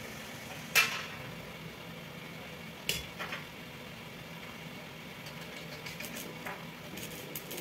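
Small metal water-pump parts clicking and clinking as they are handled on a wooden workbench: two sharp clicks about a second and three seconds in, then a few fainter ticks, over a steady low hum.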